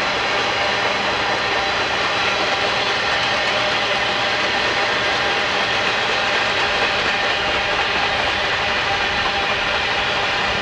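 Freight cars of a long train rolling past steadily, their wheels on the rails making an even, unbroken noise.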